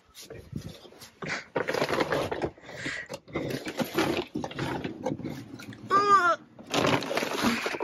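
Things being moved and handled inside a camper van: a series of rustles and knocks, with a short squeaky sound that wavers in pitch about six seconds in.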